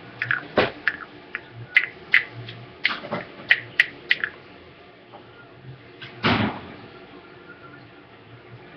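Handling noises on a tiled floor: a run of irregular sharp clicks and knocks over the first four seconds, then one louder, half-second noise about six seconds in.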